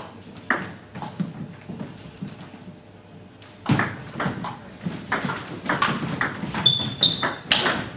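Celluloid-type table tennis ball clicking off bats and the table in a doubles rally: a single hit about half a second in, then from about the middle a quick, irregular run of hits. A brief high squeak sounds shortly before the end.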